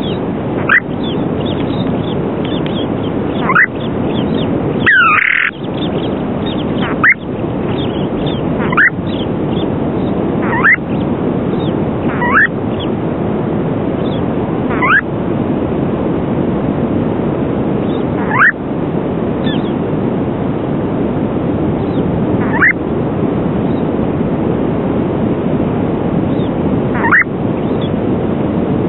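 Western snowy plover calling: short rising notes every two to four seconds, with a louder double note about five seconds in. Beneath them runs a steady rushing wind noise.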